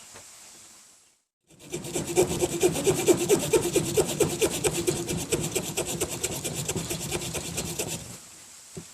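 Small folding saw blade of a Victorinox Fieldmaster Swiss Army knife sawing into resinous pine fatwood with rapid, even back-and-forth strokes to make sawdust. The sawing starts about a second and a half in and stops near the end, over the steady rush of a nearby creek.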